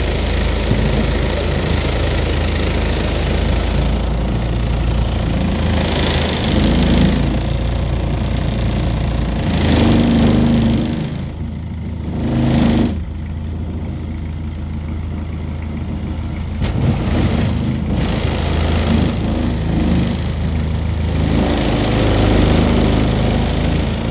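Small boat's engine running steadily as the boat travels, a continuous low hum that dips briefly about halfway through.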